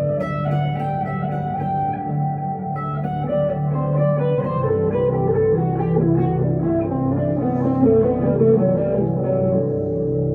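Electric guitar, a Gibson Les Paul Custom through a Two Rock valve amp, playing a slow melodic line of sustained, ringing notes over a steady low held chord.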